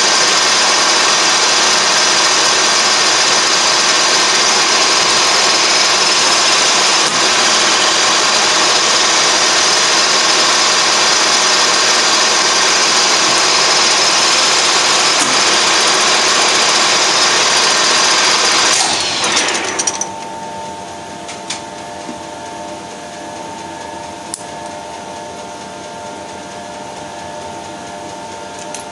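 Colchester Triumph 2000 lathe spindle running steadily at 840 rpm, loud and even, then switched off about two-thirds of the way in and winding down with a falling whine over about a second. A quieter steady hum and a few faint clicks remain after it stops.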